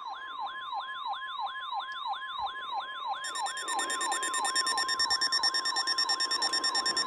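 Emergency alert tones: a steady NOAA Weather Radio warning alarm tone near 1 kHz, overlaid by an electronic siren-like alarm that sweeps downward about three times a second. About three seconds in, a rapid high-pitched electronic beeping joins and the sound gets louder.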